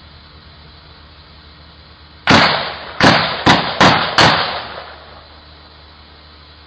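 Five gunshots in about two seconds, picked up by a doorbell camera's microphone. Each is a sharp crack with a short trailing echo, and the last four come faster than the first pair.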